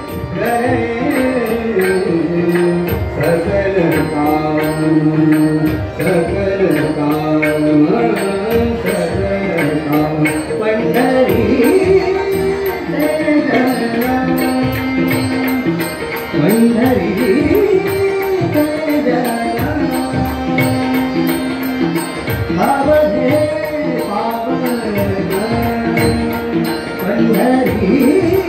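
Tabla playing fast, dense strokes under a harmonium melody of held notes that step up and down in pitch, the accompaniment of a Marathi abhang.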